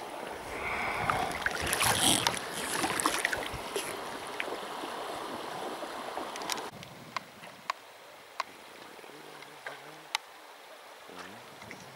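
Water splashing and rushing around an inflatable PVC boat on a river, loudest in the first few seconds and mixed with small clicks. About two-thirds through it drops suddenly to quieter water noise with a few sharp clicks.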